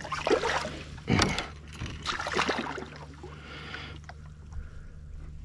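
Water splashing and sloshing against the side of a small boat as a large tarpon is held in the water at the gunwale to be revived, with a few sharp splashes in the first couple of seconds and quieter sloshing after, over a low steady hum.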